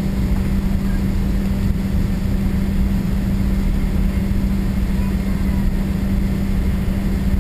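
Cabin noise inside a Boeing 777-200ER taxiing at low speed: a steady drone from the engines at idle with a constant low hum, over a rumble from the wheels on the taxiway.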